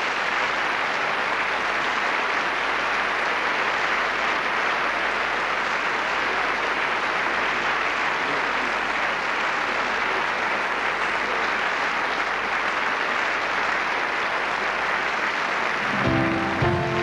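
Large audience applauding steadily. About a second before the end, music starts playing over the applause.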